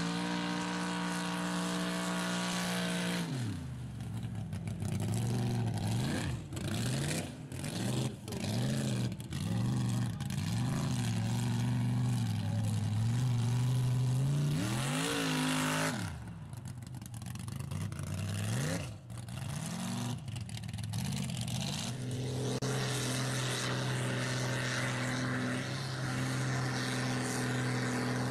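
Engines of lifted mud-bogging trucks revving hard through deep mud, the pitch rising and falling again and again as the throttle is worked, settling into a steadier, held engine note near the end.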